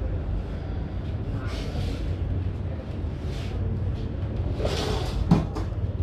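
Hands massaging shoulders over a terry-cloth towel: a few brief rubbing rustles and a sharp knock about five seconds in, over a steady low hum of background traffic.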